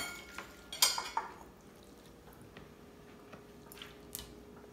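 Serving utensils clinking against a plate and plastic container as saucy shrimp is ladled out, a few sharp clinks at the start and about a second in, then a couple of faint taps near the end.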